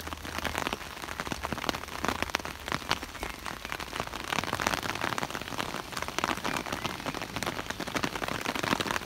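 Rain falling on an umbrella held overhead: a dense, even hiss with many sharp hits of single drops.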